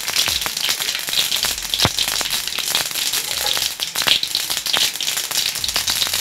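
A tadka of mustard seeds, green chilli, chana dal and urad dal frying in hot ghee, sizzling and crackling with many small sharp pops as the mustard seeds splutter.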